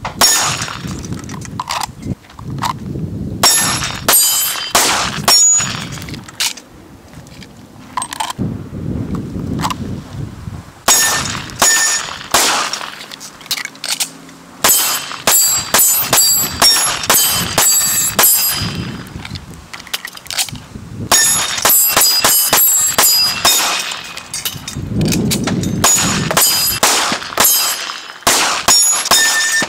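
Handgun shots fired in quick strings, several shots per string, with short pauses between strings.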